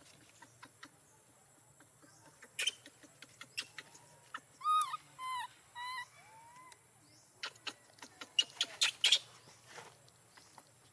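A baby monkey giving short squeaky calls, four of them in a row about halfway through, each rising and falling in pitch. Scattered sharp clicks and taps come before and after the calls, with the loudest cluster of clicks near the end.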